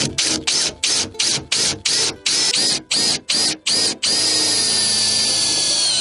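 Electric drill boring a starter hole for a jigsaw cut in a vehicle body panel. The trigger is blipped in short bursts, about four a second, each a quick rising whine. For the last two seconds it is held in one steady run.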